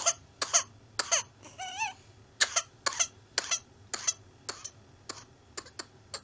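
A child with whooping cough in a paroxysm: a rapid run of short hacking coughs one after another, loudest at first and weakening toward the end, with a brief wavering vocal sound about two seconds in.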